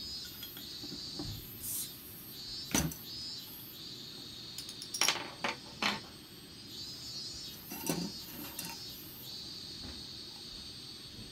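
A beer bottle's cap prised off with a metal bottle opener, a sharp pop about three seconds in, then several light metallic clinks and knocks as the opener and cap are put down on a wooden table. A steady high insect-like chirring goes on underneath.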